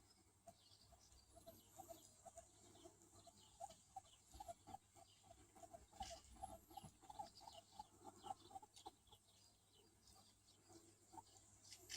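Faint run of short, evenly spaced clucking animal calls, about four a second, fading out after about nine seconds, with a few faint high bird chirps above.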